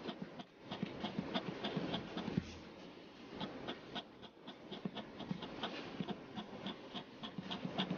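Pen scratching on paper in quick, short repeated strokes, several a second, as cross-hatching lines are drawn. A single louder tap comes about two and a half seconds in.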